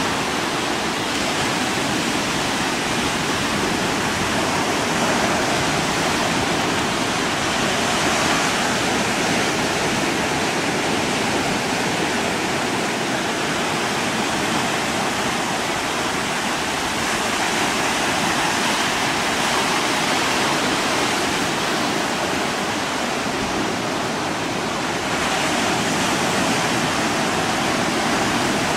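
Steady, even rushing noise with no separate events.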